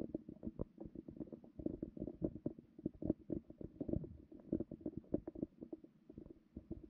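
Muffled underwater gurgling with dense, irregular soft clicks and knocks, heard through an underwater camera's microphone below the ice.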